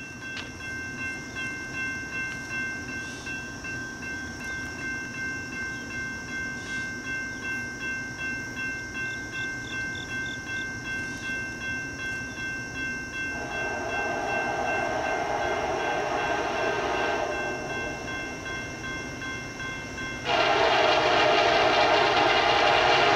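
Locomotive air horn of an approaching CSX train. It sounds about halfway through, eases off, then blows again much louder near the end. Before the horn, a steady ringing with a regular beat of about one and a half a second.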